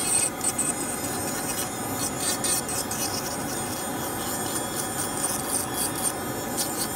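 Dental lab handpiece running steadily with a cross-cut flame-shaped bur, with an irregular scratchy grinding as the bur trims and smooths the edge of a light-cured resin custom tray.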